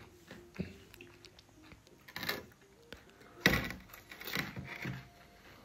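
A few short, faint eating and drinking sounds: puchkas (pani puri) being bitten into and water being gulped from a jug, in scattered bursts about two, three and a half, and four to five seconds in.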